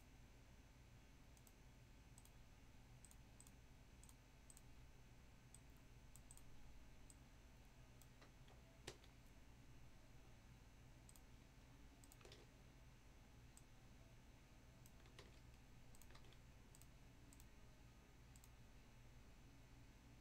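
Near silence with faint, scattered computer clicks from a mouse and keyboard, a few a little louder than the rest, over a low steady hum.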